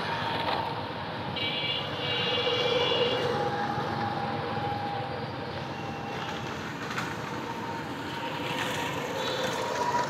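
Steady rumble of a passing vehicle, with a brief high tone from about one and a half seconds to three and a half seconds in.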